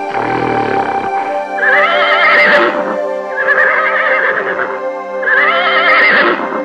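A horse whinnying three times, each call lasting about a second with a quavering pitch, over steady background music.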